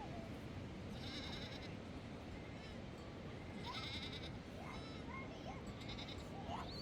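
Flock animals bleating several times, with short wavering calls about a second, four seconds and six seconds in, over a steady rushing hiss.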